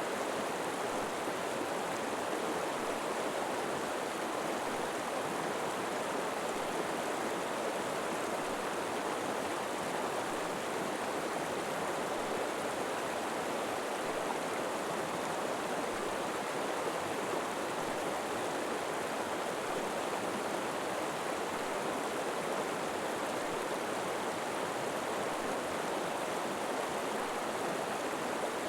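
River water flowing steadily, a continuous even rush of running water with no breaks or distinct splashes.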